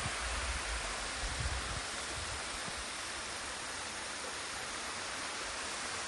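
Thin waterfall spilling over a layered rock face: a steady rush and splash of water. There are a few low thumps in the first two seconds.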